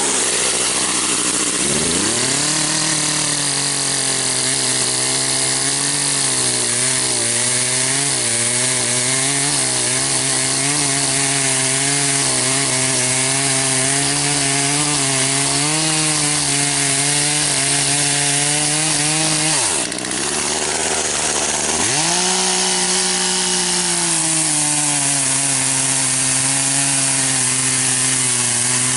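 Poulan two-stroke chainsaw running: it revs up about two seconds in and holds high revs. It drops back to idle about twenty seconds in, then revs up again about two seconds later.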